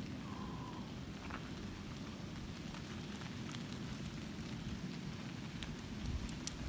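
Steady rain falling, with scattered sharp ticks of individual drops.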